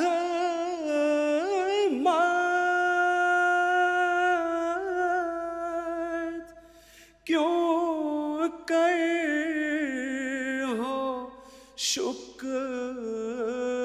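A man singing an Urdu nazm unaccompanied in melodic recitation, drawing out long held notes with slight wavers. He pauses briefly between phrases about halfway through and again near the end.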